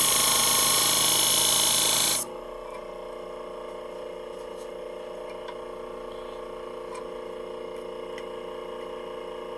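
Steel fabric-shear blade held against a spinning 600-grit sharpening wheel, giving a loud grinding hiss while a nick is ground out of the edge. The hiss stops abruptly about two seconds in as the blade is lifted off, leaving the machine's motor humming steadily with a few faint ticks.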